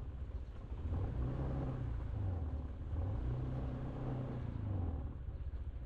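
Honda PCX scooter's single-cylinder engine running under way, its note rising and falling a few times as the throttle opens and eases.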